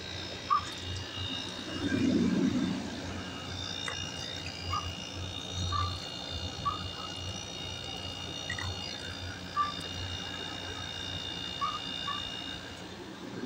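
Night chorus of frogs and insects: short frog chirps repeating about once a second over a steady high insect trill, with a brief louder noise about two seconds in.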